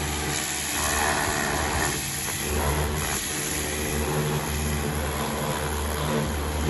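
Diesel engine of an XCMG LW300 wheel loader running, its low note rising and falling slightly a few times.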